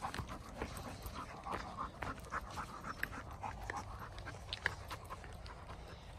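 A dog panting, with scattered light clicks and taps.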